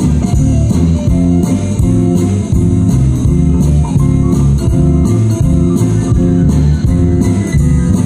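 Live band playing, with electric guitar, bass guitar and drum kit, the bass line loudest.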